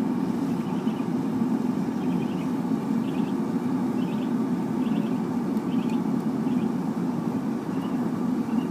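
Forced-air propane burner on the melting furnace running steadily, a constant low rushing noise of blower and flame.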